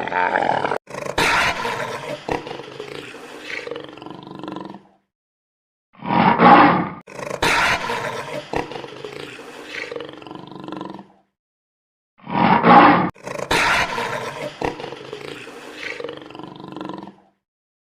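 A large animal roaring: the same call repeats three times, about six seconds apart, each a loud opening roar trailing off over about four seconds, with silence between.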